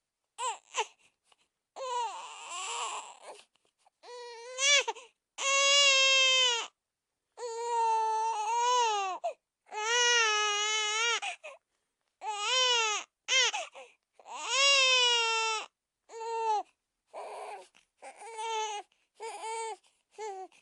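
Cartoon toddler Pocoyo crying: a string of high wailing sobs, each about half a second to a second and a half long, with short breathy gasps between.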